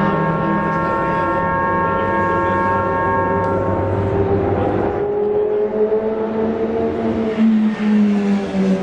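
Racing car engines running: a steady engine note for the first few seconds, then a note that rises slowly in pitch and drops back near the end.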